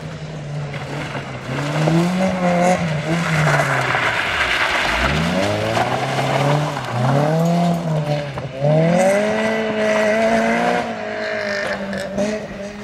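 Honda Civic rally hatchback's four-cylinder engine driven hard on a loose dirt course, revs rising and dropping back again and again through gear changes and lifts, with a long high pull about two-thirds through before backing off near the end. Tyres hiss and scrabble on loose gravel underneath.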